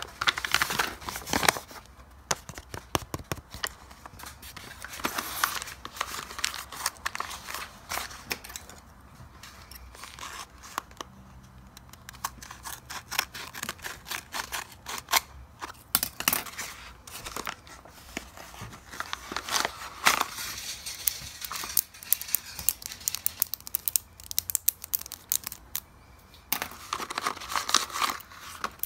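A paper blind bag crinkling and rustling in the hands, with scissors snipping through the paper and the paper tearing as it is opened, in many small irregular crackles.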